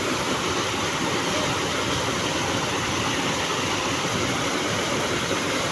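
Small waterfall pouring over boulders into a river pool: a steady, even rush of water.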